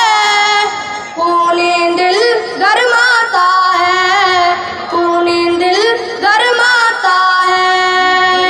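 A high voice singing a melodic line of long held notes, with ornamented turns between them.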